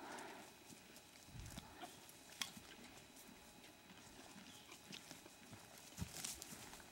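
Faint sounds of horses shifting and grazing: scattered soft hoof steps and small clicks, with a sharper click about two and a half seconds in and a low thud near the end.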